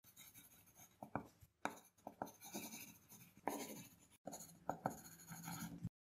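Pen scratching on paper in quick, irregular strokes with a few sharp taps, a writing sound effect for drawn-on lettering. It breaks off briefly about four seconds in and stops just before the end.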